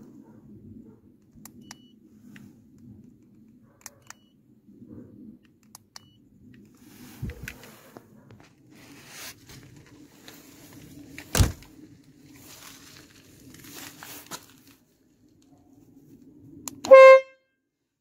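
A short horn blast from the Citroën 2CV's twin trumpet horns on the front wing, set off by remote control, near the end. It is the loudest sound here. Before it come scattered clicks, knocks and rustling over a faint low hum, with a sharp knock about halfway through.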